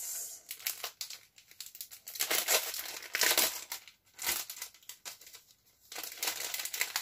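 Small clear plastic packaging bag crinkling in irregular bursts as it is handled and opened.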